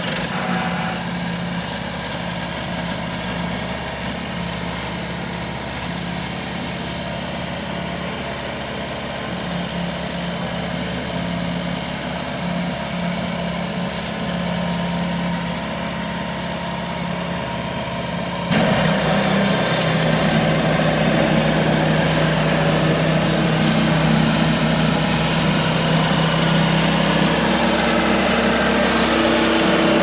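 Sawmill engine running steadily, with a sudden step up in loudness about two-thirds of the way through.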